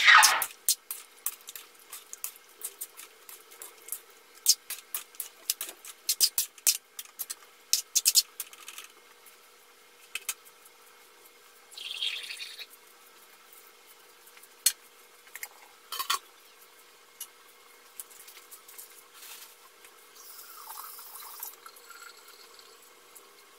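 Metal spatula scraping and clinking against an aluminium wok while a chunky tomato-sauce stew of chicken, carrots and potatoes is stirred: a loud clatter at the start, then a quick run of clicks and knocks for several seconds, thinning to a few scattered knocks. Near the end the wok's glass lid is set on.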